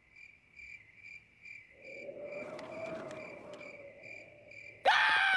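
Cricket chirping sound effect, short even chirps about twice a second, the cartoon cue for an empty, silent room. A soft eerie wash swells up and fades in the middle, and a loud held sound with a clear pitch cuts in near the end.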